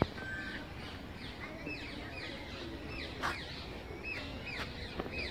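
Small birds chirping outdoors in a steady run of short, high, falling notes, over a faint low background rumble. A sharp tap right at the start and another about three seconds in.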